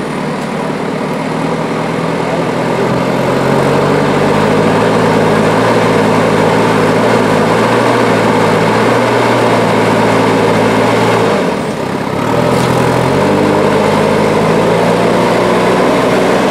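A heavy vehicle's engine running steadily, its pitch stepping up about three to four seconds in, dipping briefly near twelve seconds, then picking up again.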